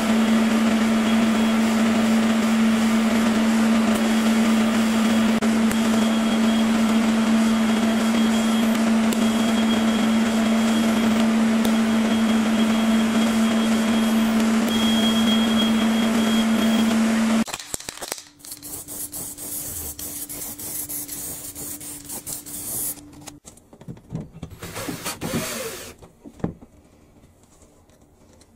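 MIG welding arc laying a bead on steel: a steady hiss over a constant low hum, which stops abruptly a little past halfway. After that come quieter, scattered noises.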